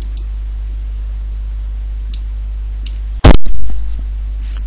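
Steady mains hum and hiss from the recording setup, with a few faint mouse clicks. About three seconds in there is a sudden, very loud, short pop that dies away within half a second.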